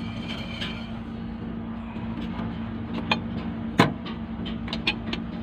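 A handful of sharp metal clicks and knocks under the truck, the loudest just before four seconds in, over a steady low hum.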